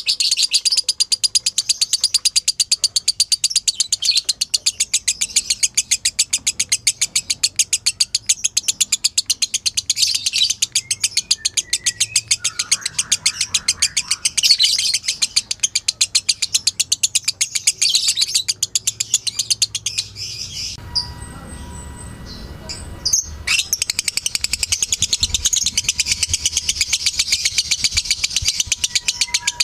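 Lovebird 'ngekek' chatter: a long run of rapid, evenly repeated, sharp high chirps. The run breaks off for about three seconds around two-thirds of the way through, then resumes.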